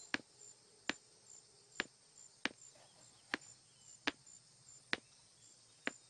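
Footsteps on a hard floor, a sharp click about every 0.8 s, with crickets chirping faintly behind.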